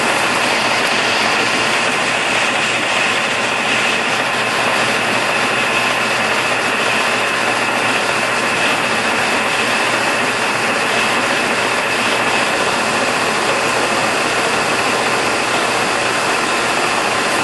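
Hwacheon HL-460 engine lathe running under power, its half nuts engaged so the carriage is driven along the leadscrew: a steady mechanical whir of the headstock and feed gearing with a high whine through it.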